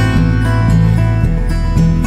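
Background music: repeated notes over a steady bass line that drops to a lower note a little past halfway.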